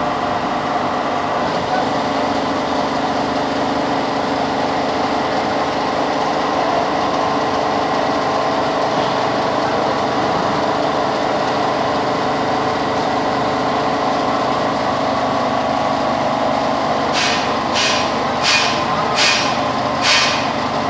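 Steady hum and whine of workshop machinery with several steady tones. Near the end come about five sharp metallic clanks, evenly spaced, as a chain hoist's chain is hauled.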